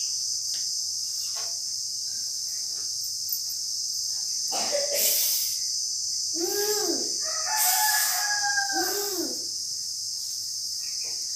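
A rooster crowing once, a little past the middle, rising into a long held note and then falling away. A steady high chorus of crickets runs underneath.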